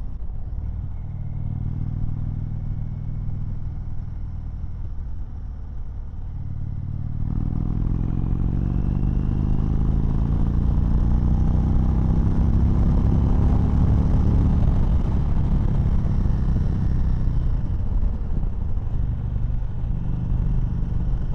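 2019 Indian Chieftain Dark Horse's Thunder Stroke 111 V-twin engine under way, opened up about seven seconds in: the engine note gets louder and climbs in pitch for several seconds as the bike accelerates, dips briefly near the end, then holds steady.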